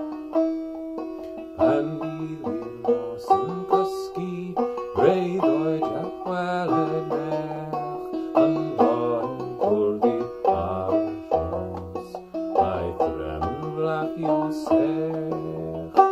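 Banjo played clawhammer style, a steady rhythmic run of plucked notes, with a man starting to sing a Welsh folk song over it about two seconds in.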